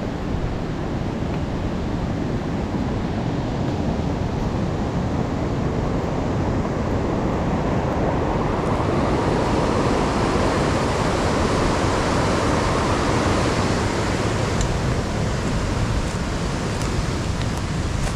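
Fast-flowing mountain river: a steady rush of water that grows louder around the middle and eases off near the end.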